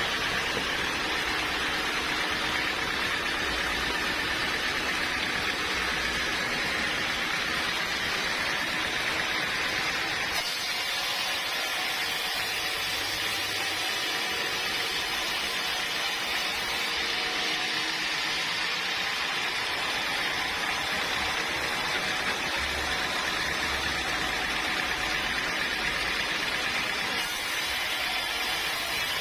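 Sawmill machinery running steadily, a continuous noise that shifts in tone about ten seconds in.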